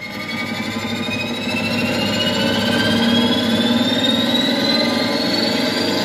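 Audio from a phone played through the Stranger PBT-701 power amplifier and loudspeakers. It swells over the first couple of seconds as the volume knob is turned up, then holds steady, with a high tone rising slowly throughout.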